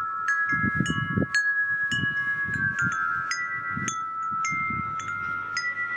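Chimes struck one after another, about two a second, each bell-like tone ringing on and overlapping the next, over uneven low rumbles.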